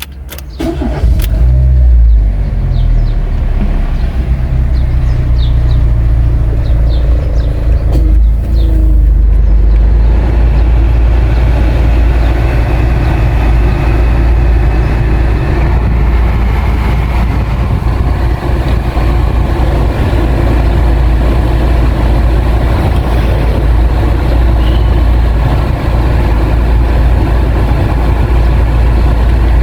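Renault Logan's engine running steadily at idle, loud and close.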